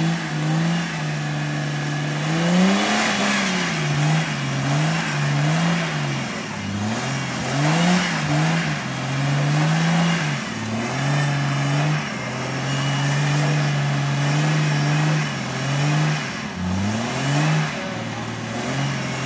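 A 4x4's engine revving up and down over and over, its pitch rising and falling every second or two, with a few longer held stretches, under a steady rushing noise.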